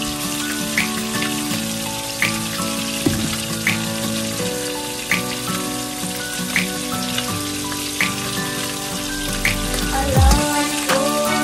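Instrumental background music between rap verses: sustained chords with a light tick about every second and a half, and a deep sliding bass coming in near the end. Under it there is a steady hiss from a pot of sour fish soup simmering.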